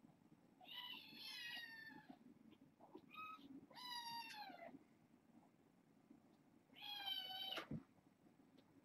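Young kittens meowing: three longer high-pitched meows and one short one, each falling in pitch.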